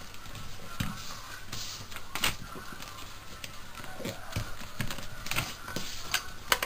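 A sheet of paper being folded and creased by hand on a wooden desk: rustling and crinkling, with scattered taps and a few light thumps of hands on the desktop.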